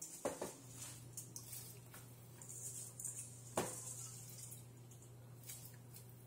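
Raw basmati rice poured from a stainless steel bowl into a pot of boiling water: a patchy hiss of grains sliding and pattering in, with two sharp knocks, one just after the start and one about three and a half seconds in. A steady low hum runs underneath.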